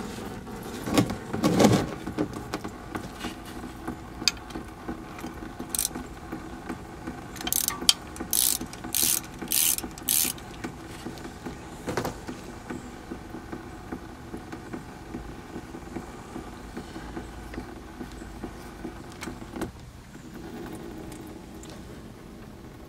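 Engine oil draining in a thin stream from a loosened oil cooler line fitting, pattering below, amid a run of small mechanical clicks and rattles. The loudest sounds are a cluster of knocks about a second in and several short hissing rasps about eight to ten seconds in.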